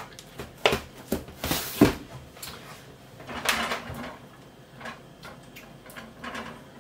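Kitchen handling sounds: a few sharp knocks and clatters, the loudest a little under two seconds in, then a silicone spatula stirring and scraping in a small stainless steel saucepan.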